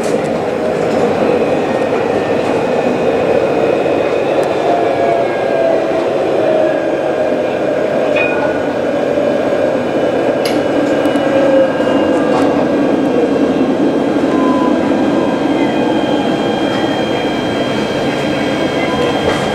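Alstom Citadis tram running on its rails, heard from inside near the front: steady rolling noise of the wheels with an electric motor whine that falls in pitch as the tram slows into a stop, then a steady high whine as it nears standstill, with a few light clicks.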